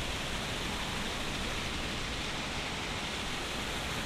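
A steady, even hiss of outdoor background noise, with no distinct events.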